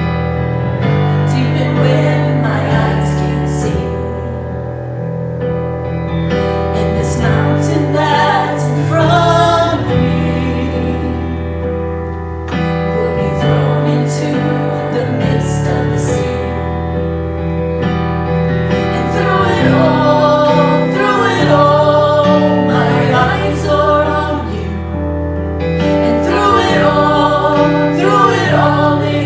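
Worship band playing a gospel worship song, with singers over piano and sustained chords.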